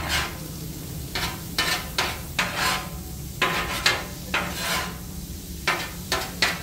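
Metal spatulas scraping and clacking against a hot steel flat-top griddle as rice and onion are chopped and turned, a run of irregular scrapes and taps over the sizzle of frying food.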